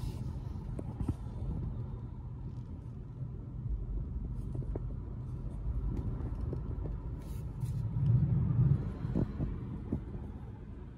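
Cabin noise of a 2021 BMW 530i xDrive driving at around 50 km/h: a steady low rumble of road and engine noise, swelling briefly about eight seconds in.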